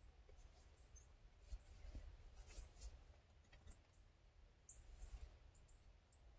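Near silence: quiet woodland air with many faint, short high chirps of small birds and a few soft rustles.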